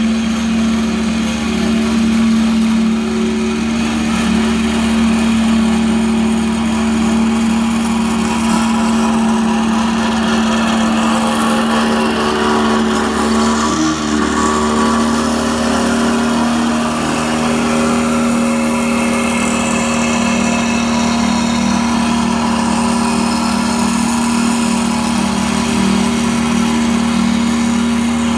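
Small engine of a walk-behind double-drum roller running steadily as it compacts graded soil, a constant-pitched drone that holds level throughout.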